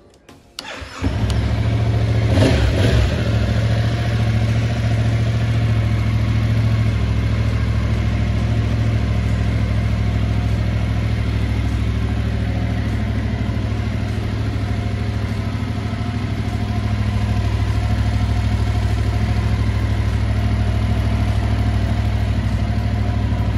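A 2022 Yamaha MT-07's 689 cc parallel-twin engine being started with the electric starter: it catches about a second in, the revs flare briefly, then it settles into a steady idle.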